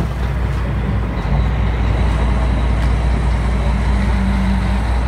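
Boat engine running steadily underway, its low hum under a steady rush of wind and water. A short knock sounds right at the start.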